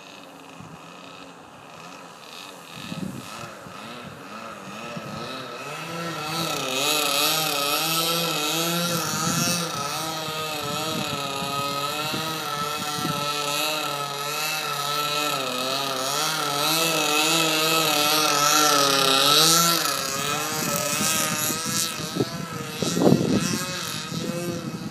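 OS 40 FP two-stroke glow engine of a 40-inch RC Yak model plane, turning an 11x4 propeller, running in flight. Its pitch wavers up and down continually, and it grows louder from about six seconds in, with a brief loudest moment near the end as the plane passes close.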